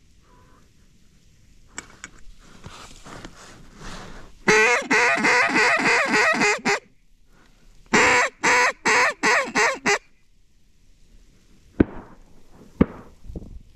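Hand-blown duck call: a loud, fast run of about ten quacks, then after a short pause a second series of about six separate quacks. Fainter calling leads in, and two sharp knocks come near the end.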